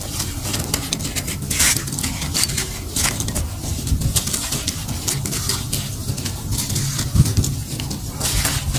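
Dry gritty clumps being crushed and broken apart by bare hands, with irregular crisp crunching and crackling as they crumble and grains trickle down, over a steady low rumble.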